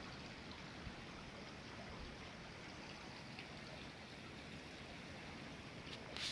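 Creek swollen by overnight rainstorms, its water flowing steadily. A short rustle sounds near the end.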